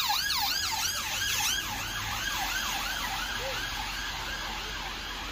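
Emergency vehicle siren sounding a fast rising-and-falling yelp, loudest for the first second or so and then growing fainter.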